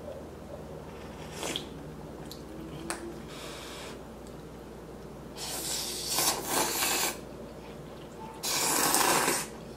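A person slurping instant ramen noodles from a bowl: four slurps, the last two longer and louder than the first two.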